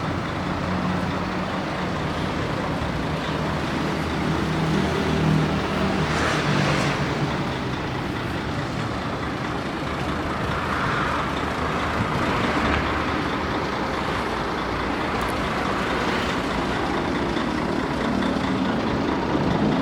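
Heavy truck's diesel engine running steadily, its low hum clearest in the first half, under a continuous noisy rumble.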